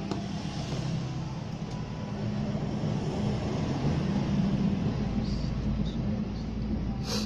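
Steady low rumble of an engine that swells a little partway through, with one sharp click near the end.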